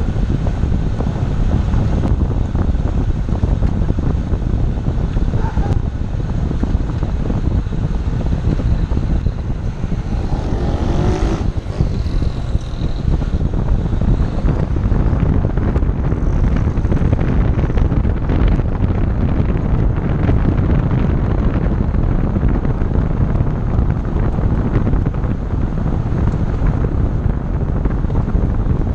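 Heavy wind buffeting on the microphone over the road and running noise of a moving Chevrolet Zafira, steady throughout.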